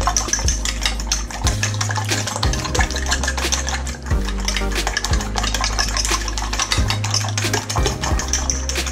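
A fork whisking beaten eggs in a glass dish, with rapid clinking of the tines against the glass and wet stirring. A low hum runs underneath and shifts in pitch every second or so.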